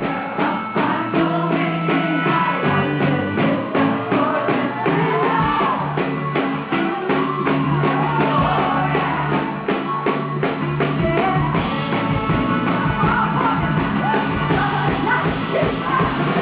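Live rock band playing, with a steady, driving drumbeat under a woman's singing voice. The sound is loud and dull at the top.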